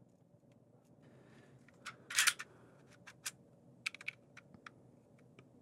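Small metal parts of a Hi-Capa 5.1 airsoft pistol clicking and scraping as the aluminum slide, recoil spring and guide are worked by hand onto the frame. A louder scraping clack comes about two seconds in, followed by a scatter of light clicks.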